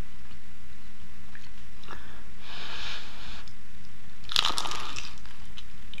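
A bite into a crisp deep-fried chicken empanada: the fried pastry crackles sharply about four seconds in for under a second. A softer, shorter crisp rustle comes a second or so before it.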